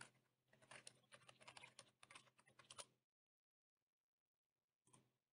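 Faint typing on a computer keyboard: a quick run of key clicks lasting about two seconds, and a single click near the end.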